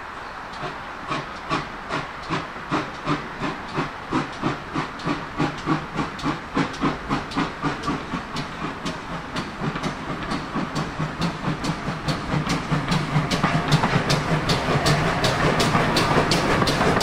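GWR pannier tank locomotive 6412 pulling away with its auto train: steam exhaust chuffs, about two a second at first, quickening steadily as it gathers speed, with steam hissing. It grows louder as the train draws near.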